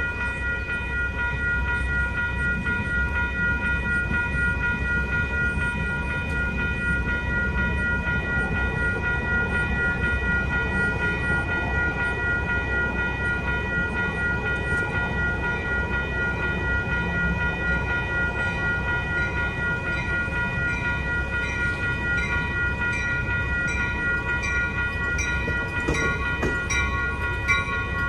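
Railroad grade-crossing bells, among them a Safetran mechanical bell, ring steadily and without pause. Beneath them is the rumble of an MTS light-rail train rolling through the crossing. Near the end, regular clicking joins in as an Amtrak passenger train arrives.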